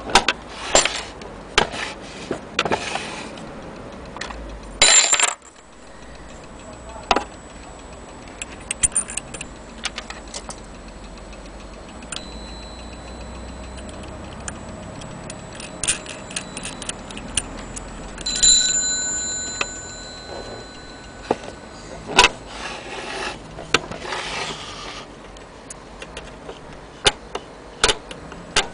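Antique French mantel clock being handled, with irregular clicks and knocks on the case and movement. Its strike bell rings, faintly about twelve seconds in and clearly about eighteen seconds in, a clear metallic tone dying away over a couple of seconds.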